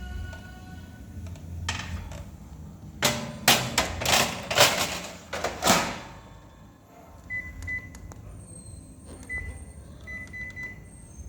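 A Japanese domestic gas stove being worked: loud clicks and knocks clustered in the first half, then several short electronic beeps at one steady pitch from its controls.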